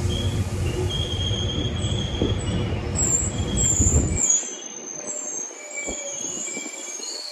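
GO Transit bilevel passenger coaches rolling slowly past on arrival, their steel wheels and brakes giving repeated high-pitched squeals over a low rumble. The rumble drops away about four seconds in, leaving the squeals.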